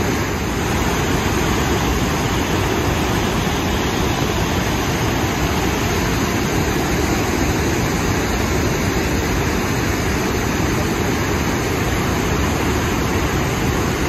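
Rhine Falls, a large river waterfall: a loud, steady rush of falling water that does not change.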